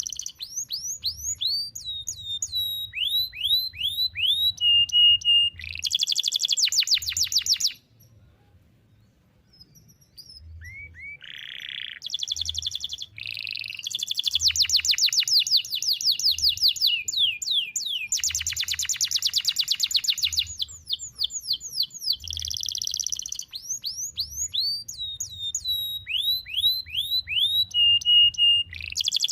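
Domestic canary singing long phrases: runs of quick falling whistled notes, short held tones and fast rattling trills, with a pause of about two seconds in the first half.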